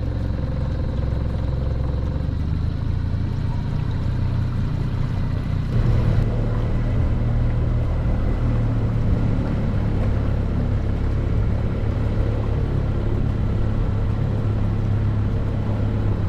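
A boat's outboard motor running steadily while the boat is underway, growing louder about six seconds in as it is throttled up.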